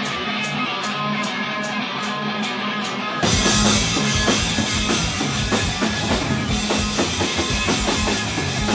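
Rock band playing live: electric guitar chords over a steady high ticking beat, then the drum kit and bass come in with the full band about three seconds in.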